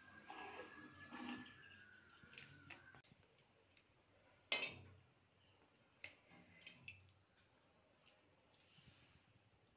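Steel ladle clinking against steel cookware as rajma curry is served: one sharp clink about halfway through, then a few fainter taps.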